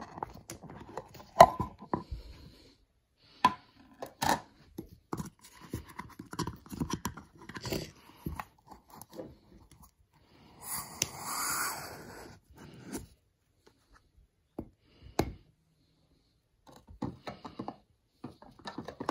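Clicks, knocks and scrapes of a stainless mug, its lid and a metal canister being handled on a counter, with one sharp knock near the start. A short hiss lasts about a second and a half a little past the middle.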